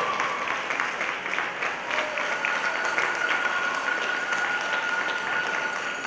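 Audience applauding, a steady dense patter of clapping right after a competition routine's music has stopped.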